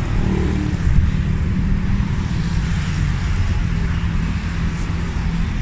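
Steady low rumble of city traffic, with no firework bangs.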